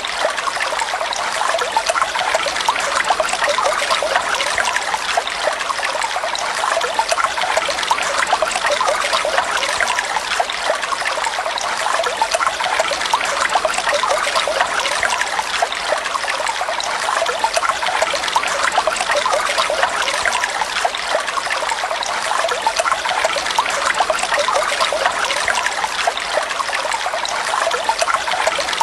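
Flowing water trickling and splashing steadily, a continuous babbling with no pauses.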